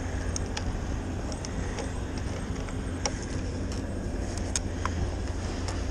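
Jump-starter clamps and cables being handled at a car battery: scattered light clicks and taps over a steady low rumble.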